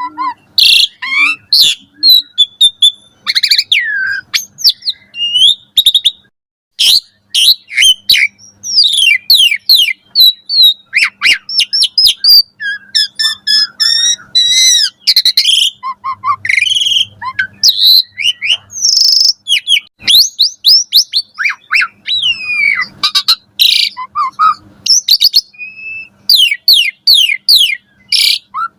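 Asian pied starling (jalak suren) singing in full, vigorous song: a fast, varied run of sharp chirps, rising and falling whistles and harsher notes, separated by brief pauses.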